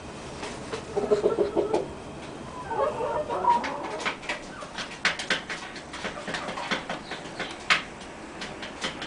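Barred Plymouth Rock hen in her nest box making a few quick runs of low clucks in the first few seconds. These are followed by a scatter of short sharp clicks and crackles.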